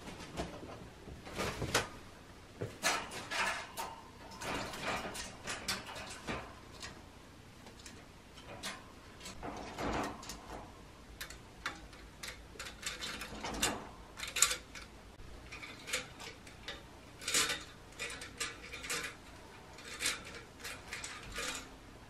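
Scattered, irregular taps, clicks and light rattles with a few short rustles: pet crows and a magpie hopping, pecking and landing on a wire cage and wooden perches.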